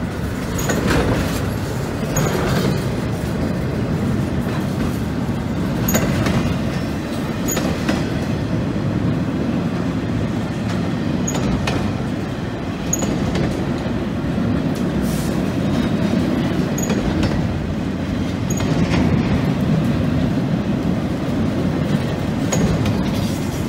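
Freight train of empty flatcars rolling steadily past: a continuous rumble of steel wheels on the rails, broken by irregular clicks as the wheels cross rail joints.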